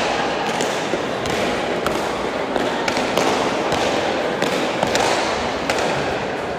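Bare-handed pelote basque rally: the hard pelota is slapped by the players' bare hands and cracks off the front wall and the floor. These are sharp echoing smacks coming about every half second to second over the steady background noise of the hall.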